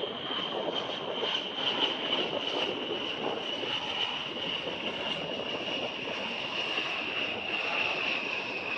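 A-10 Thunderbolt II's twin TF34 turbofan engines in flight: a steady high-pitched whine over a broad rushing jet noise, the whine slowly falling in pitch.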